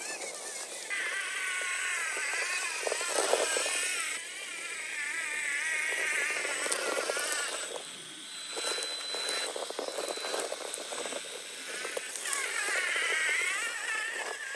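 Electric motor and geared drivetrain of a 1/10 scale RC rock crawler whining, its pitch rising and falling with the throttle as it crawls over rocks, with scattered clicks and knocks from the tyres and chassis on stone.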